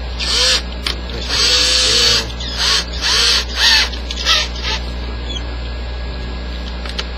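Cordless drill run in about six short trigger bursts, the motor whirring up and winding down each time, while a gloved hand holds the keyless chuck to tighten it on the piece.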